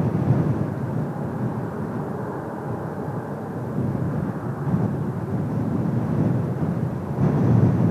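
Kawasaki T-4 jet trainers' turbofan engines heard at a distance, a steady rushing rumble that swells louder near the end.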